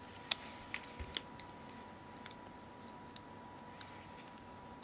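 Small screwdriver and tiny screws clicking against a Nokia X7 phone's case as its last top screws are driven in finger tight. There are a few sharp light ticks in the first second and a half, then scattered fainter ones.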